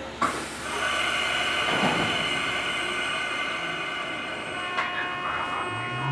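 Mizuma Railway 1000 series electric train heard from inside its motor car as it starts off. There is a sudden sound about a quarter-second in, then several steady high tones, and near the end the traction motor's whine begins and rises in pitch as the train gathers speed.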